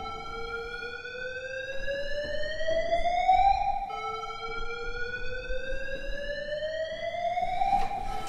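Electronic siren-like tone that rises slowly in pitch for about four seconds, drops back and rises again, twice in all. There are a couple of sharp clicks near the end.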